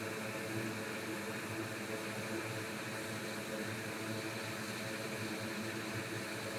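Hot air rework station blowing a steady stream of hot air, with a low hum from its fan, while desoldering the backlight LED driver chip from a MacBook Air logic board.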